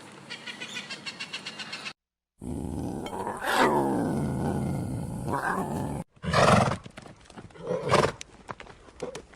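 A big cat roaring and growling: one long falling roar, then after an abrupt cut two loud separate bursts. It is preceded by about two seconds of fast, even chirping that stops at a sudden cut to silence.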